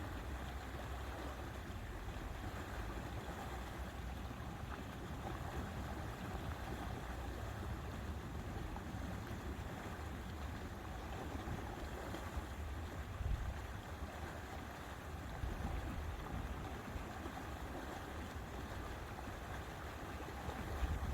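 Lake water lapping at the shore, a steady wash over a low rumble, with a couple of brief louder bumps about halfway through and near the end.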